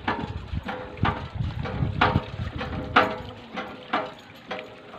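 Borewell hand pump being worked, its handle clanking with each stroke about once a second.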